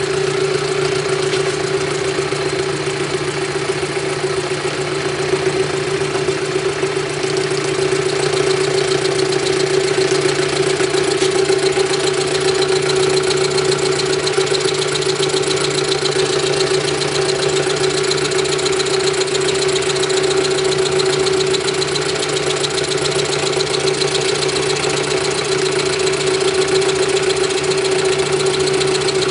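A machine tool running steadily throughout, with a constant hum and a strong steady tone over a continuous noise.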